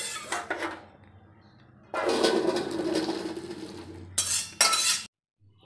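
Boiled fruit and its water tipped from a metal kadai into a perforated steel plate to drain: a sharp metal clink, then about two seconds of pouring and splashing, then two loud clanks of the pan near the end.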